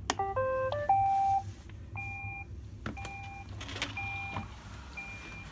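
iRobot Roomba 805 robot vacuum starting a cleaning run: a quick jingle of stepped electronic tones, then a short two-tone beep about once a second.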